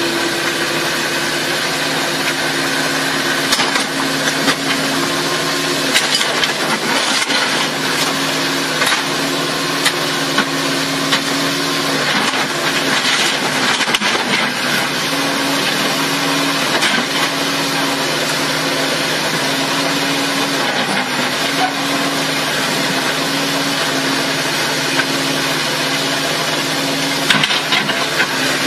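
Doosan mini excavator's engine running steadily under hydraulic load as the machine levers itself up onto a dump truck bed with its boom, with a few short knocks and clanks.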